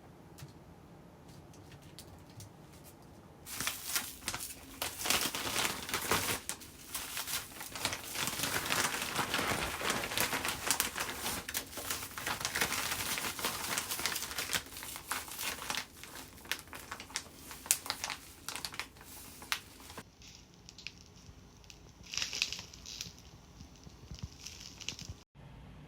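Packaging being crinkled and handled: a dense, irregular crackling that starts suddenly a few seconds in, then thins out into lighter, scattered rustles.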